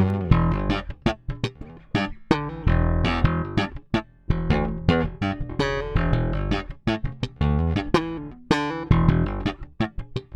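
Bass guitar played solo: a continuous run of plucked notes with sharp, percussive attacks, each note ringing briefly before the next.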